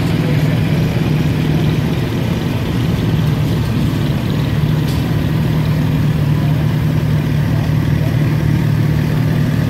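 Several vintage farm tractors and a garden tractor driving slowly past in a line, their engines running steadily with a low, even hum.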